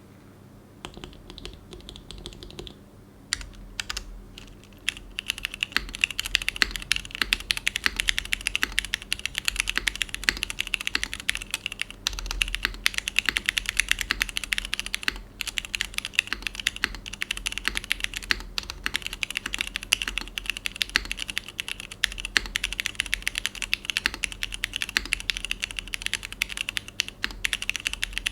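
Fast, continuous typing on a Neo75Cu custom mechanical keyboard with an aluminium plate, Nixies linear switches on 45g TX springs and TX stabilizers: a dense run of keystroke clacks with occasional louder strokes, likely the spacebar or larger keys. The typing starts lightly about a second in and picks up to full speed after a few seconds.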